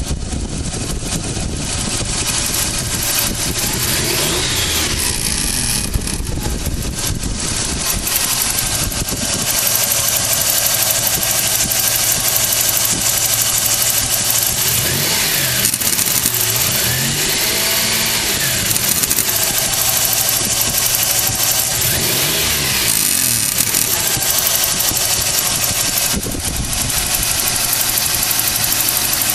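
Toyota 4Runner engine running over a steady hiss, its pitch rising and falling several times as it is revved, in a recording meant to catch an unexplained weird noise from the vehicle.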